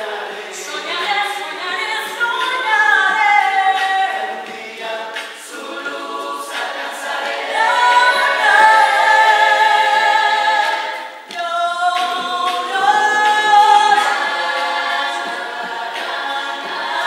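A rondalla's mixed voices singing in close harmony, led by a woman's voice, with the voices carrying the music; a brief drop about 11 seconds in between phrases.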